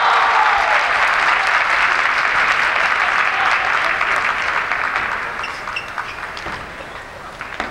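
Arena crowd applauding, fading away over the first several seconds. After that, light clicks of a table tennis ball on bats and table are heard as the next point is played.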